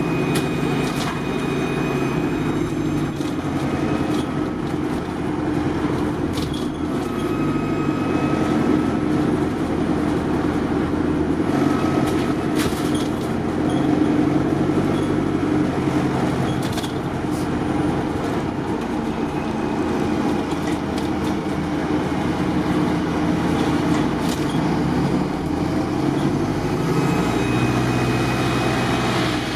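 London bus engine and drivetrain heard from inside the passenger saloon, running continuously. Its note rises and falls several times as the bus accelerates and slows in traffic, over steady road noise, with occasional clicks and rattles from the cabin fittings.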